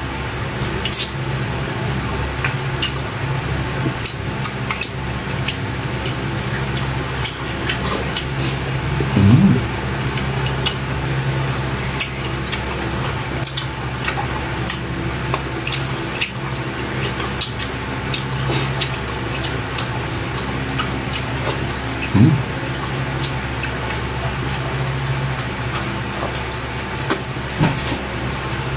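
Wet eating sounds of two people eating saucy octopus adobo with their hands: chewing, lip-smacking and sucking sauce off fingers, many small clicking smacks, over a steady low hum.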